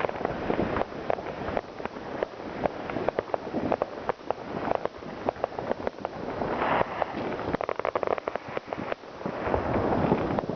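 New Year's Eve fireworks and firecrackers: a dense, irregular string of sharp bangs and cracks. Swells of crackling come about six and a half seconds in and again near the end.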